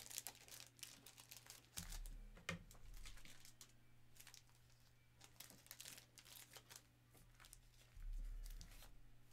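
Faint crinkling and rustling of plastic as trading-card sleeves and top loaders are unpacked and handled, with a couple of soft low bumps, about two seconds in and near the end.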